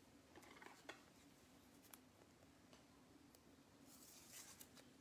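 Near silence, with faint clicks and a soft rustle of trading cards being handled and set down on a table; the rustle comes about four seconds in.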